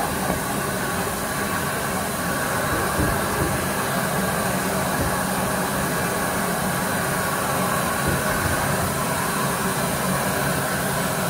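Rebuilt Bulleid Battle of Britain class steam locomotive 34059 standing at the platform, giving off a steady hiss of steam.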